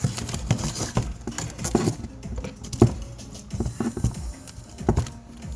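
Irregular small clicks, taps and rustles of objects being handled and set down on a workbench.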